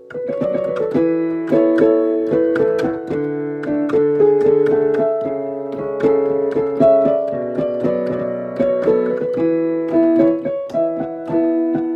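Piano being played: a melody of quick struck notes over lower bass notes in the left hand, each note ringing on, with the last chord fading out at the very end.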